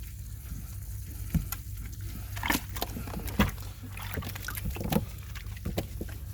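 An American Bully puppy snorting a few times in short, separate snorts while it is being washed, with small splashing and rubbing sounds over a steady low hum.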